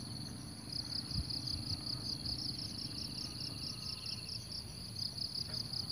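Insects chirping in a steady, evenly pulsing high-pitched chorus, with a fainter, faster trill joining for about a second near the middle.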